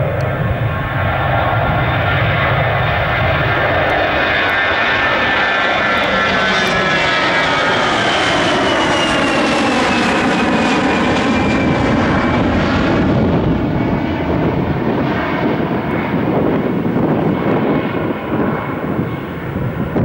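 Airbus A320-214's two CFM56-5B turbofan engines at takeoff thrust as the airliner lifts off and climbs past: loud, steady jet engine noise with whining tones that drop in pitch as it passes, about ten seconds in, then a lower rumble as it climbs away.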